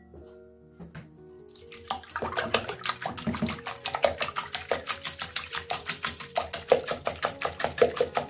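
A liquid mixture being whisked in a bowl: quick, even strokes, about six a second, starting about two seconds in and stopping just before the end, over soft background music.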